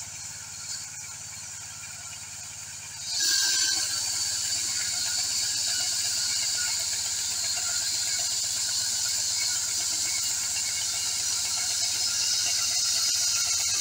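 Portable band sawmill's small petrol engine running steadily. About three seconds in the sound gets much louder as the band blade starts spinning, adding a steady high-pitched whine over the engine.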